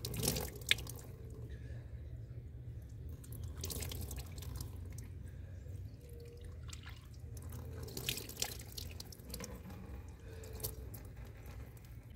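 Water trickling from a small hose-fed tap spout into a plastic washbasin, with splashes and drips as hands scoop it up to wash the face and then the hands.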